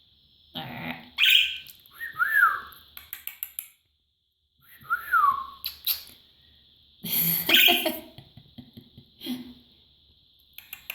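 Pet budgerigar calling while preening hair close to the microphone: short noisy chirps and chatter, with two whistled notes, the first rising then falling and the second falling.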